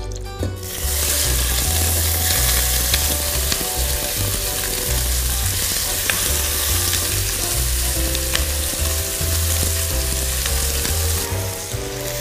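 Prawn shells and heads tipped into a hot pan start sizzling loudly about a second in, then fry hard while being stirred, with scattered clicks of the utensil against the pan. The prawn carcasses are being browned for a bisque.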